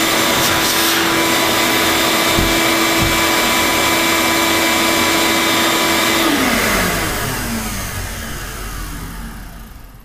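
Craftsman 5.75 HP wet/dry shop vac motor running at full speed with a steady whine, then switched off about six seconds in and winding down, its pitch falling and fading as it slows.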